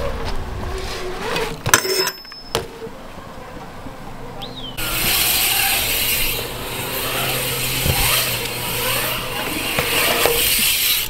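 BMX bikes on a concrete skatepark: tyres rolling on concrete, with a few sharp clicks and knocks about two seconds in. From about five seconds in, a loud, even rushing hiss of tyres carving a concrete bowl and wind on the microphone.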